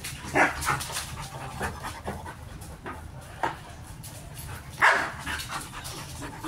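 Dogs panting, heard as a few short breathy bursts, the loudest about five seconds in.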